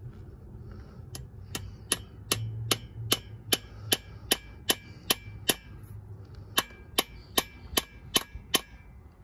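Steel hammer tapping a spiral screw extractor into a hole drilled in a broken Watts link stud on a rear axle housing, driving it in to bite before it is turned out. About twenty sharp metallic blows at an even pace of about two and a half a second, each ringing briefly.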